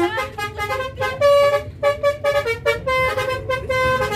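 A bus's basuri telolet horn, a multi-tone musical air horn, playing a quick tune of short notes that step from pitch to pitch.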